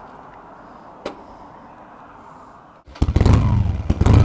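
Faint background hum with a single click about a second in, then a Harley-Davidson motorcycle engine comes in suddenly about three seconds in, running loud and deep.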